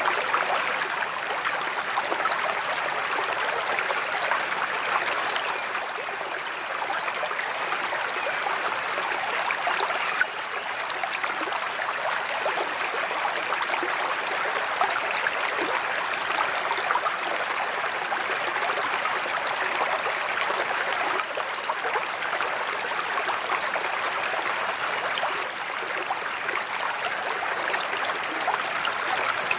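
Steady splashing of a koi pond's sheet-water spillway pouring into the pond.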